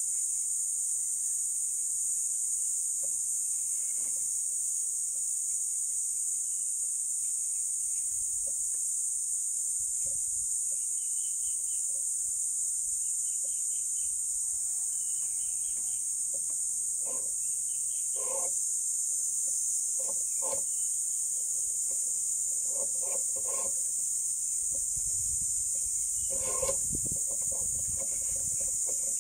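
Steady high-pitched insect drone, with scattered light clicks and knocks from handling a phone-holder adapter clamped on a rifle scope, mostly in the second half.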